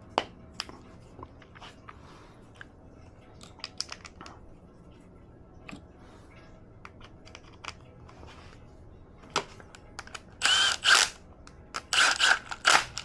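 Small parts and tools clicking and knocking during hands-on work on a lawn mower's carburetor, then a small power tool running in several short bursts near the end.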